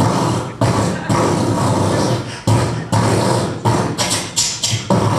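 A man imitating machine-gun fire with his mouth, amplified through a stage microphone and PA: a string of sharp, spitting blasts, irregularly spaced and coming quicker near the end.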